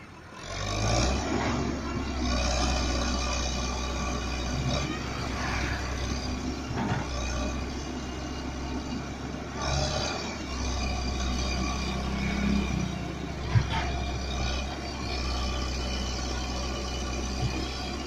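Excavator's diesel engine running with a steady low drone, the sound swelling every few seconds as the machine works. There is a single sharp knock about three-quarters of the way through.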